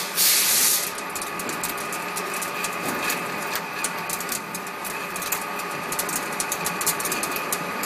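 Metal lathe running under a heavy facing cut, about 3.5 mm (140 thou) deep, on a large metal disc: a steady whine from the machine with a dense irregular crackle of chips breaking off the tool. A brief loud hiss in the first second.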